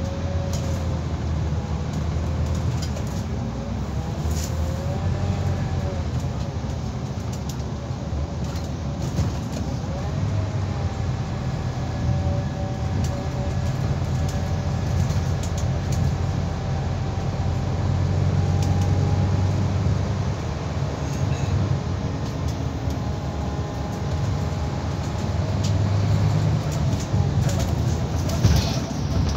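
Ride inside a Scania Citywide LE Suburban bus (K320UB) under way: the low drone of its five-cylinder diesel engine, with the whine of the ZF automatic gearbox rising and falling in pitch as the bus speeds up and slows, and holding steady for a stretch in the middle.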